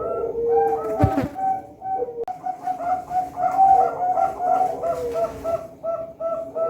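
Several caged competition birds calling together, with rapid short repeated notes over longer, lower gliding notes. A single sharp knock comes about a second in.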